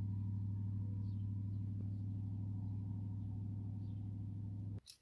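An engine running steadily at idle, a low even hum that cuts off abruptly near the end.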